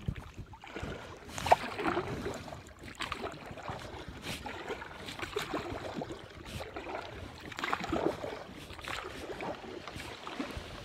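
Kayak paddle dipping and splashing in the water stroke after stroke, with occasional light knocks.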